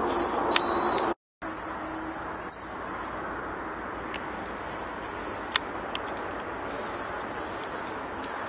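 Golden lion tamarin giving high-pitched calls: quick runs of short falling whistles, with a few longer notes near the end, over a steady forest hiss. The sound cuts out for a moment about a second in.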